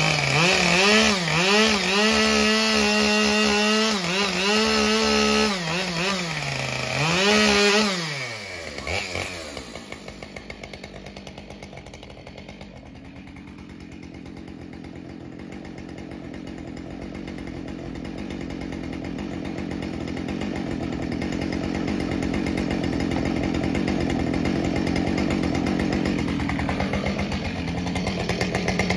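Husqvarna 572 chainsaw engine revving up and down repeatedly for the first eight seconds, then dropping to a lower, steadier running sound that grows gradually louder, with a brief dip in pitch near the end.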